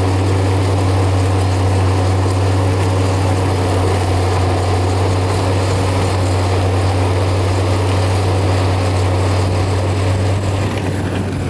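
Prinoth AHWI Raptor 800 tracked forestry mulcher running, its diesel and spinning mulcher drum making a loud steady drone with a deep hum as the head chews through brush and wood debris. The sound eases slightly near the end.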